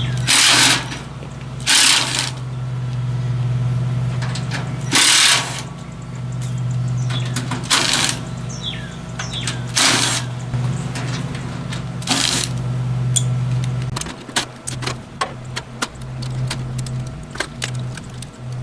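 A power screwdriver run in six short bursts a few seconds apart, as fasteners are taken out, over a steady low machine hum. The hum breaks up near the end, and scattered clicks and light knocks of parts being handled take over.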